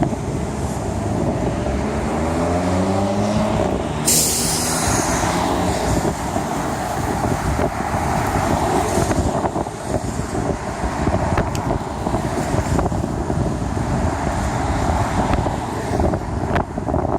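Audi S5 (B8.5) supercharged 3.0-litre V6 revving, its pitch rising over a couple of seconds. A sudden loud hiss follows about four seconds in. The engine then keeps running with scattered sharp exhaust crackles and pops.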